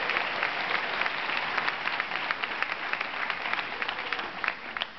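Applause from many people clapping, thinning into scattered individual claps and fading near the end.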